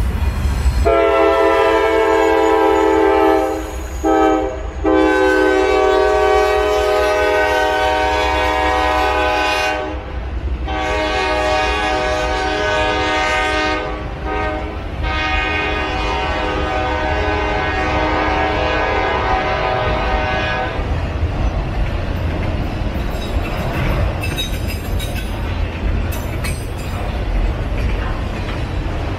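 Norfolk Southern diesel locomotive's air horn sounding a series of blasts, the last and longest ending about 20 seconds in, over the low rumble of the passing engines. After that, only the train's autorack cars rolling past with a steady rumble and wheel clatter.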